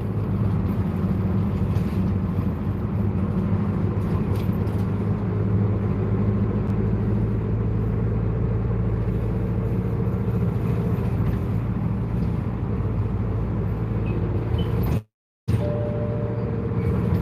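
Route bus running, heard from inside the cabin: a steady low engine drone with road noise. The sound breaks off completely for about half a second near the end.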